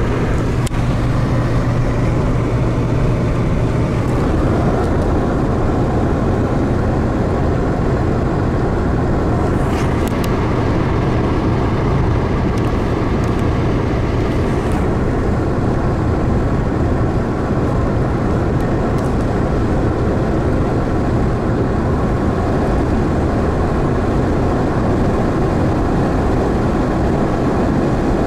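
Steady in-cabin drive noise of a car cruising at motorway speed: a constant low engine drone under even tyre and road noise.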